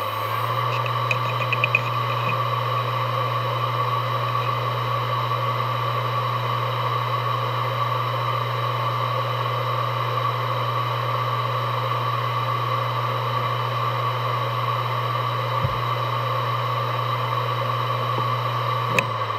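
Western Digital Caviar Blue WD1600AAJS 160GB hard drive, 7200 rpm, reaching full speed and spinning steadily with a low hum and a steady whine from the spindle motor and platters. A few quick head clicks come about a second in, with single clicks later on and near the end. The drive is in perfect health and runs normally.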